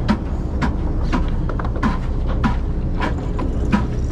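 Boat engine running with a steady low drone, with a short sharp knock repeating about every 0.6 seconds over it.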